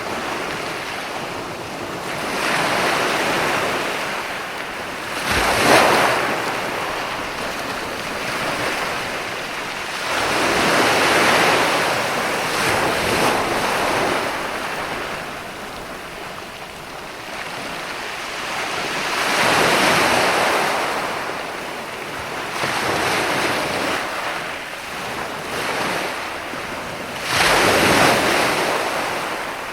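Ocean waves breaking on a shore: a steady wash of surf that swells and recedes every few seconds, with the biggest breakers about six seconds in and near the end.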